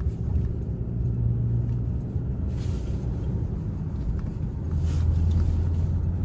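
Low, steady rumble of a car on the move, heard from inside the cabin. The drone drops a little in pitch and grows louder about five seconds in.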